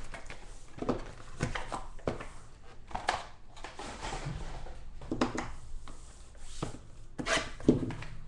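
Cardboard trading-card mini-boxes being handled: taken from the hobby box and set down on the table, making irregular knocks and rustles.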